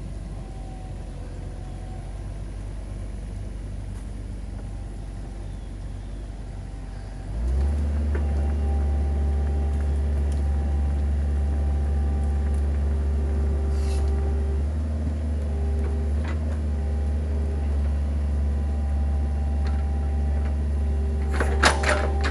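Mini excavator's diesel engine running as the machine claws its way up a steep slope, with a steady hum that steps up to a louder, heavier run about seven and a half seconds in as it comes under load. A few sharp clanks come near the end as the bucket digs in.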